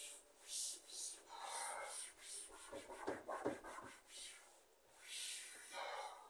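A cloth wiping the inside of a cupboard, several irregular rubbing strokes one after another.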